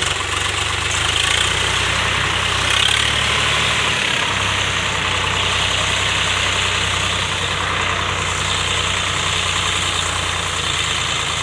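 Swaraj 744 FE tractor's three-cylinder diesel engine running steadily while hitched to a loaded trolley stuck in soft mud.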